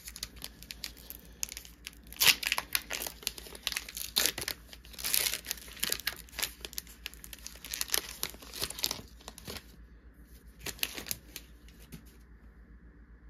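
Foil Pokémon booster pack wrapper being torn open and crinkled by hand: a dense run of crackles, loudest about two seconds in, that thins out after about ten seconds.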